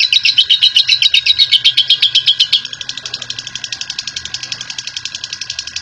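Lovebird giving a long 'ngekek': a fast, unbroken chattering trill of about ten high notes a second. About halfway through it drops suddenly in volume and carries on.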